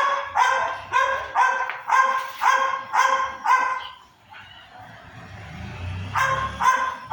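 Dog barking repeatedly: a quick run of about eight high-pitched barks, about two a second, then after a pause a few more near the end.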